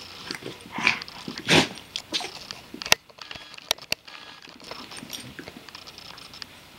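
A Doberman and a small dog wrestling and mouthing at each other. Two short, harsh bursts of dog noise come in the first two seconds, followed by a few sharp clicks around three to four seconds in.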